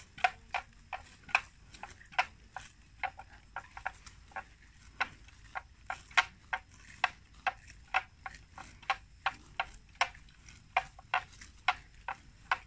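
Water buffalo tearing and cropping grass as they graze: quick, sharp rips, irregular, about two or three a second.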